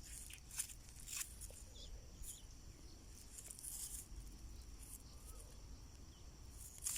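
Insects trilling steadily in the background, with scattered faint clicks and rustles.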